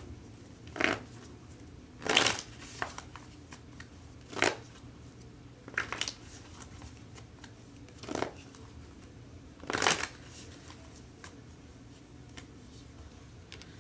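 Tarot deck being shuffled by hand in six short bursts, a second or two apart, with small clicks of cards between.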